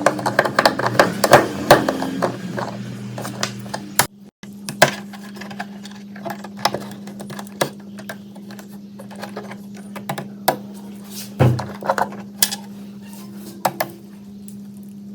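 Light metallic clinks, taps and knocks from metal parts being handled and fitted, over a steady low electric hum.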